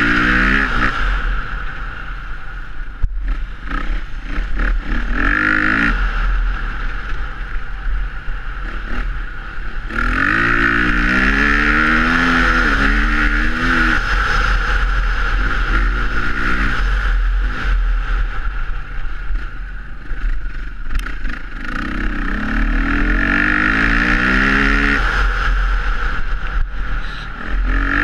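Dirt bike engine revving hard and shifting up, its pitch climbing in several steps before easing off, over and over as it rides the track. Wind rushes over the helmet-mounted microphone, with a sharp click about three seconds in.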